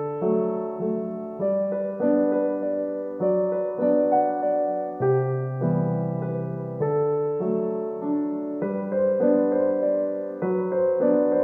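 Background piano music, with notes and chords struck about once a second.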